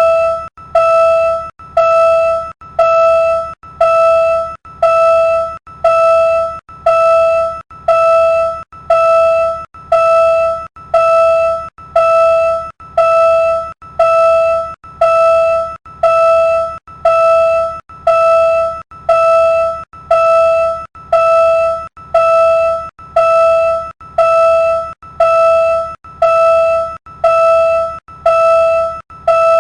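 Railroad crossing warning bell ringing steadily, about one strike a second, each a bright ringing tone that dies away before the next.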